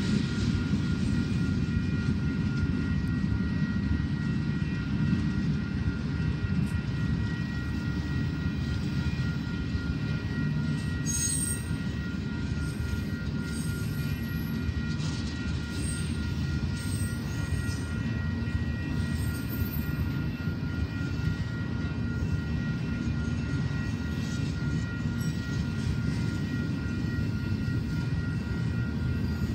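Freight train of tank cars, covered hoppers and autorack cars rolling past at steady speed: a steady low rumble of wheels on rail, with a faint steady high-pitched tone over it.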